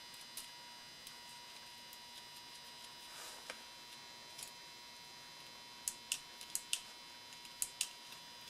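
Small sharp clicks and taps of plastic ignition-switch parts and spring being pushed into place, bunched in a quick cluster of about six clicks from about six seconds in. A steady faint electrical hum sits underneath.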